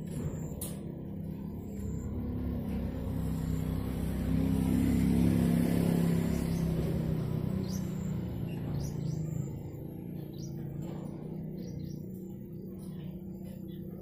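A motor vehicle passing by, its engine hum swelling to its loudest about five seconds in and then fading away. Birds chirp throughout.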